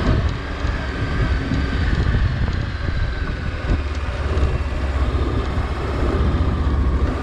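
Honda CB500X's parallel-twin engine running as the motorcycle rides over cobblestones, with wind on the microphone and scattered knocks from the front end. The knocking is an unexplained rattle near the steering head that the rider and a mechanic have not yet traced.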